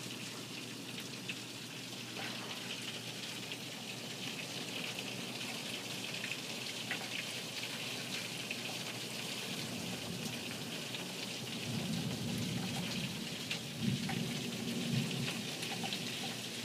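Heavy rain pouring steadily with a fine patter. Low thunder rumbles in about ten seconds in, swells, and fades near the end.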